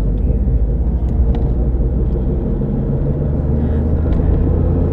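A car on the road with a steady low rumbling drone from the driver-side front wheel area. The noise grows louder with road speed and does not change under braking or turning; the owner cannot tell whether it is a bad tire or a drivetrain fault.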